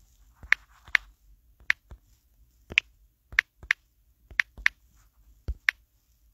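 About a dozen sharp clicks at irregular spacing: typing taps on a phone's touchscreen keyboard.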